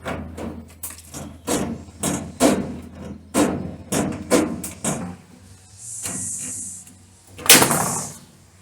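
A run of sharp knocks on metal, about two a second for five seconds, then a short hiss and one louder knock near the end.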